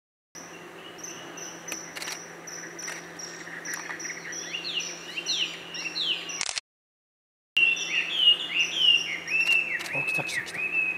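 Common kingfishers calling: a run of short, high, thin whistled calls that sweep downward, repeated rapidly. The calls are louder after a break of about a second of silence past the middle.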